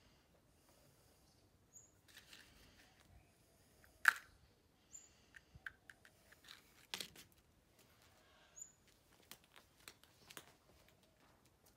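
Hands handling small wiring parts and their packaging: rustling and crinkling with scattered sharp clicks, the loudest about four seconds in and another about seven seconds in.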